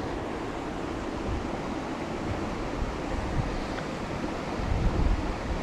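Steady rushing of a large river's current, with low wind buffeting on the microphone about five seconds in.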